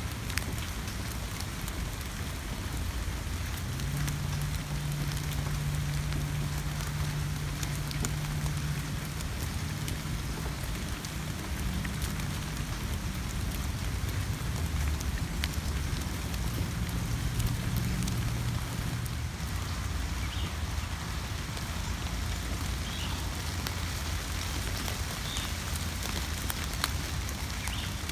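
Steady rain falling on leaves and flowers, an even hiss with many small drop ticks. A low steady hum runs under it through the middle stretch, and a few faint short high chirps sound near the end.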